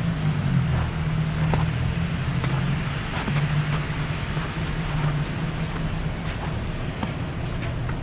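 Footsteps on snow and slush at an irregular pace over a steady low mechanical hum, which fades about six seconds in.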